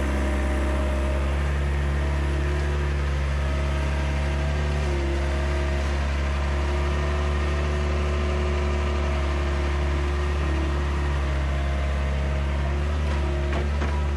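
Skid-steer loader's engine running steadily close by while its bucket tips out a load of gravel, with a few short clatters near the end.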